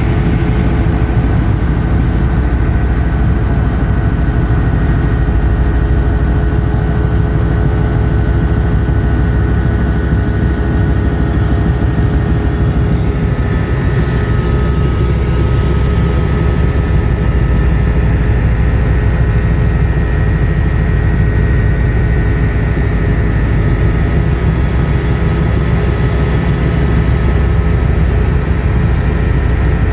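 Helicopter in flight, its engine and rotor running steadily and loudly, heard from inside the passenger cabin, with a thin high whine above the rumble.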